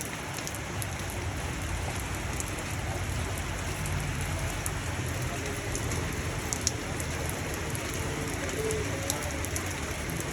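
Steady rain falling, with many small drops ticking sharply on a surface close by.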